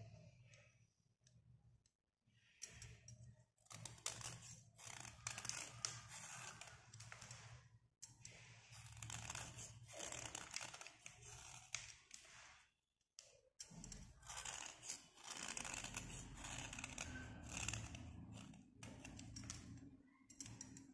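A slate pencil being scraped with a small blade: runs of dry scraping strokes with brief pauses between them as the outer layer comes off in flakes.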